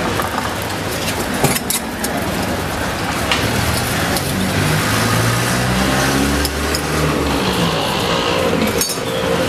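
Street-stall gas burners running with a steady hiss, with a few sharp clinks of metal pan lids and small pans being handled. A low engine hum from a passing motor vehicle swells and fades in the middle.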